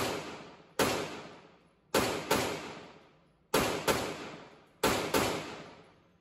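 Glock 43X 9mm pistol firing about eight shots, most in quick pairs roughly a third of a second apart, each shot ringing out in the reverberant indoor range lane. The last shot comes about five seconds in and its echo dies away.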